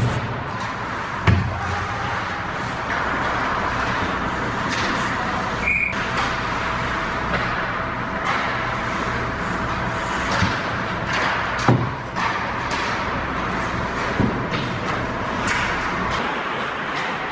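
Ice hockey play: skates scraping and carving on the ice under a steady rink noise, with sharp knocks every few seconds from sticks on the puck and the puck hitting the boards.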